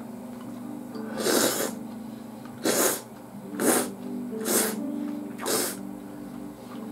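Five loud slurps of udon noodles sucked up from chopsticks, each about half a second long and a second or so apart, over background music.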